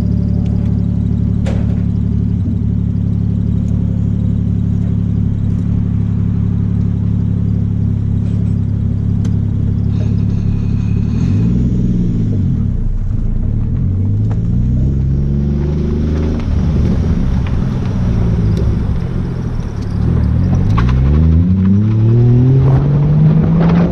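Nissan 240SX S13 engine running steadily, then accelerating hard: the revs climb and drop back several times as it goes up through the gears.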